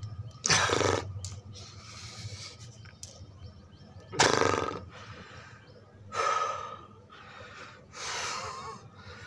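A man breathing forcefully through the mouth while straining in a held plank-like yoga pose. There are four loud, rushing breaths a few seconds apart.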